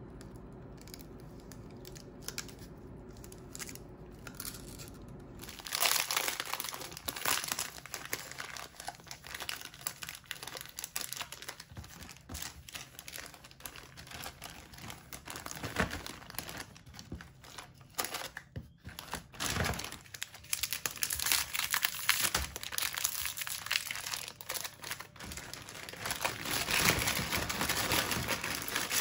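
Foil-lined Oreo wrappers and a clear plastic zip bag crinkling and rustling as they are handled and torn open, starting about six seconds in after a quieter stretch with a faint steady hum.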